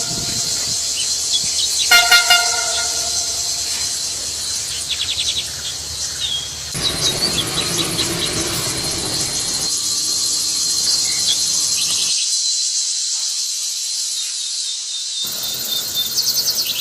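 Steady, dense high-pitched insect chorus, with a short horn-like call sounded in three quick pulses about two seconds in. The background changes abruptly several times.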